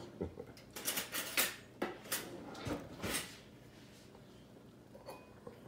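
A metal spoon clinking and scraping against a cast iron Dutch oven and a bowl as a portion is served: a handful of short, sharp clinks and scrapes in the first half, then quieter with a few faint ticks near the end.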